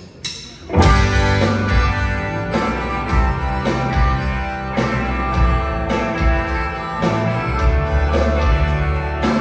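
A rock band starts a song about a second in: strummed guitar over bass and a steady drum beat.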